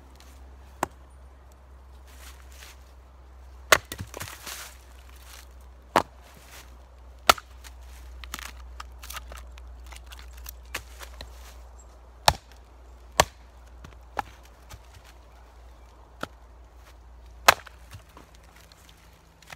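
Bulgarian winged hatchet on a freshly fitted green-wood handle splitting small pieces of wood on a chopping block: about ten sharp chops, spaced one to four seconds apart.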